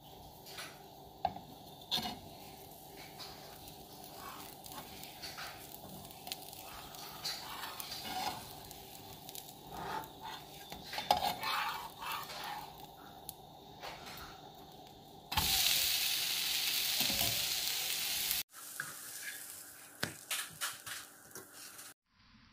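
Pesarattu (moong dal dosa) with chopped onion frying on a hot tawa: a steady sizzle with small crackles and pops. About fifteen seconds in, a louder, even hiss lasts for about three seconds and then cuts off.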